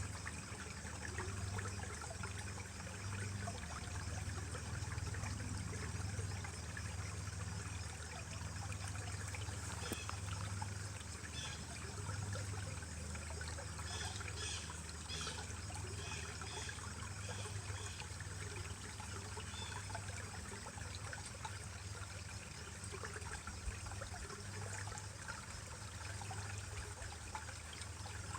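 Mountain stream trickling and splashing steadily over rocks.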